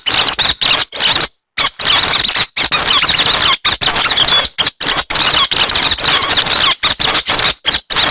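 Lure recording of the hec xoan bird calling: loud, dense chattering made of many rapid high chirps, broken by several short, abrupt gaps.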